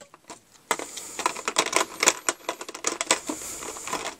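Clear plastic blister tray from an action-figure package crackling and clicking as it is handled. A quick, uneven run of sharp clicks starts just under a second in.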